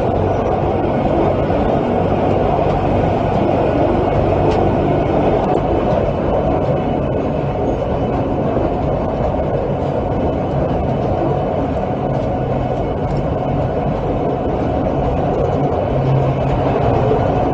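Rack railway car running along the track: a steady, even running noise of the train with a low hum underneath.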